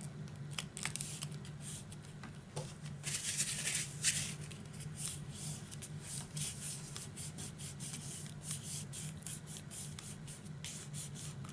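Hands rubbing and pressing paper pockets flat onto a cardstock folio page: a run of short dry scuffs of fingers on paper, heaviest about three to four seconds in, over a steady low hum.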